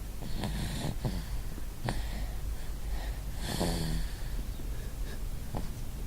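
A sleeper snoring in bed: a few irregular noisy, wheezy breaths and short snorts, the longest and loudest, with a pitched snore tone, a little past halfway.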